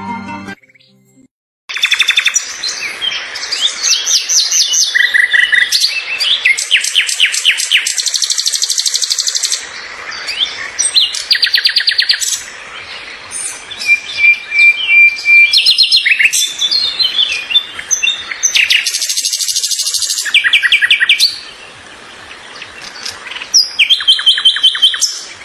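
Birds chirping and singing: many high chirps and fast trills overlapping, with a short held whistle about halfway through, beginning about two seconds in after a brief gap.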